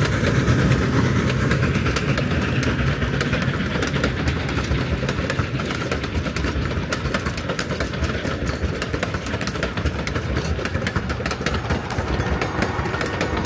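Durango and Silverton narrow-gauge steam train, hauled by K-28 class 2-8-2 locomotive 473, running by: a steady rumble with many quick clicks from the wheels on the rails, coming thicker after the first few seconds.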